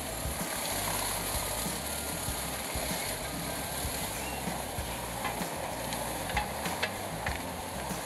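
Morbark 2755 wood chipper running as it is fed brush and small trees: a steady rumble under the crackle of branches being chipped, with a few sharp snaps between about five and seven seconds in.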